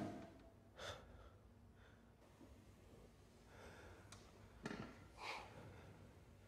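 Near silence in a quiet room, broken by a few faint breaths: one about a second in and another just after five seconds, with a soft click just before it.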